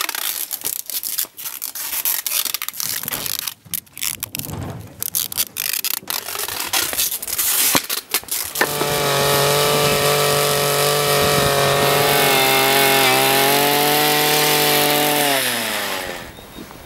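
Irregular rustling and rubbing from hands handling charges and their wrapping. About eight and a half seconds in, a small petrol engine starts running at high, steady revs, then winds down with falling pitch near the end.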